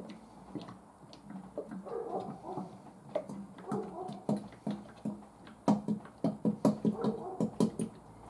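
Fresh engine oil glugging as it is poured from a plastic oil bottle into a plastic jug. The gulps come irregularly at first, then turn louder and quicker, about four or five a second, over the last few seconds.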